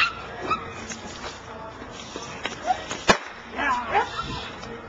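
Young protection-training dog barking and yipping in short bursts, with one sharp crack about three seconds in.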